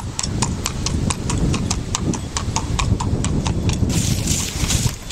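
A ridden palomino horse's hooves striking a paved lane in a quick, even rhythm of about six hoofbeats a second, over a low rumble. The hoofbeats fade out near the end as a brief hiss comes up.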